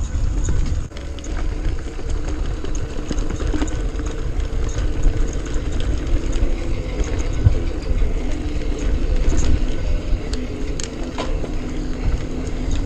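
Mountain bike riding a dirt trail: a steady low rumble of tyres and wind, with scattered sharp clicks and rattles as the bike goes over roots and rocks.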